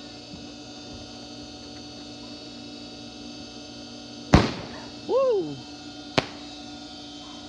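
A backyard firework goes off with one sharp bang and a short crackling tail, followed by a brief rising-then-falling yell and, about two seconds after the bang, a smaller sharp pop.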